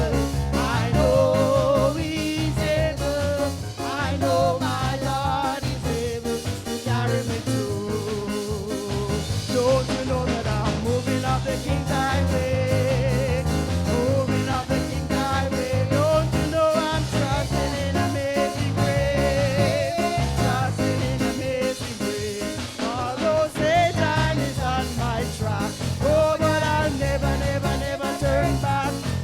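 A song with a lead singer, the voice wavering with vibrato, over a band accompaniment with a steady beat.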